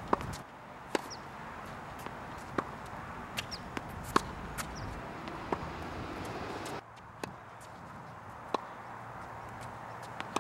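Tennis balls struck by a racket and bouncing on a hard court: sharp single pops about every one to one and a half seconds, the loudest about four seconds in.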